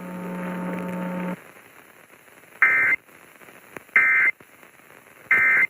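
EAS end-of-message signal: three identical short bursts of digital warbling data tone, each about a third of a second long and about 1.3 s apart, marking the end of the alert broadcast. Before them a steady low radio hum runs for about a second and a half, then cuts off.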